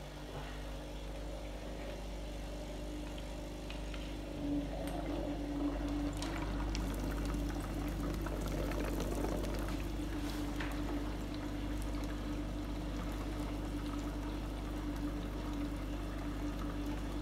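Small electric aquarium air pump humming steadily while its air bubbles up through salt water in a plastic bottle, aerating brine shrimp eggs to hatch them. The bubbling grows louder about four seconds in.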